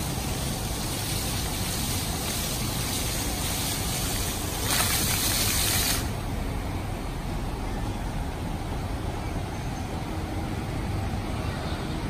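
Floor-level plaza fountain jets splashing onto wet paving as a steady hiss of water. The hiss swells about five seconds in, then cuts off suddenly about a second later as the jets shut down, leaving a low steady background rumble.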